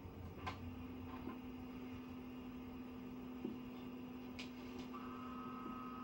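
Faint steady electrical hum with a few light clicks. A second, higher steady tone joins about five seconds in.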